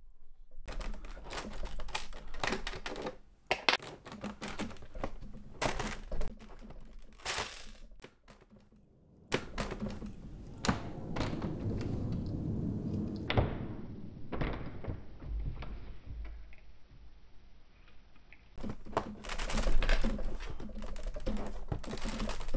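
LEGO bricks being handled and pressed together: a quick, irregular run of small hard plastic clicks and taps, with a short lull just past the middle.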